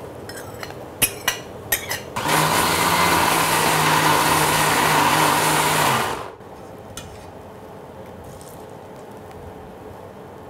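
Indian mixer-grinder (mixie) motor running with its steel jar full of cooked vegetables and liquid, pureeing them for about four seconds with a steady hum, then stopping suddenly. A few clicks of handling come before it starts.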